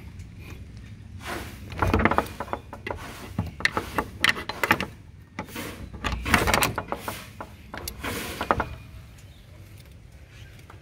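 A key working a padlock on a metal door hasp, in several bursts of clinking and rattling metal over most of the clip. It ends as an old wooden door is opened, after which it is quieter.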